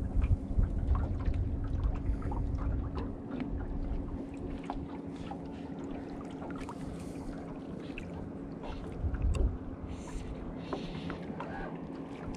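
Small waves lapping and ticking against a small boat's hull over a steady low hum. Wind rumbles on the microphone in the first few seconds and again briefly around nine seconds in.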